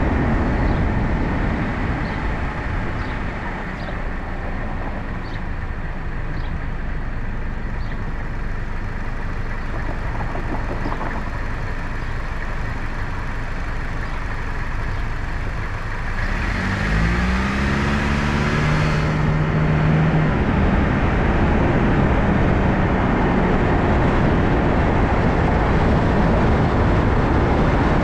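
Car on the move: steady tyre and road rumble that eases a little as it slows. About two-thirds in, an engine note rises as the car accelerates away, holds for a few seconds, then fades back into the road noise.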